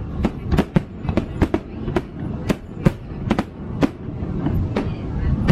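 Fireworks bursting overhead in a rapid, uneven run of sharp bangs and cracks, several a second, over a low rumble.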